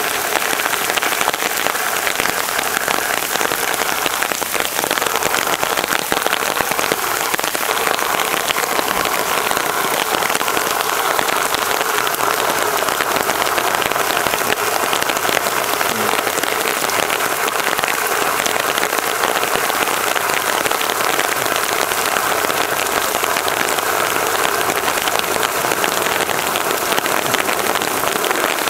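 Heavy rain pouring down steadily in an even, unbroken rush onto standing floodwater during a cloudburst.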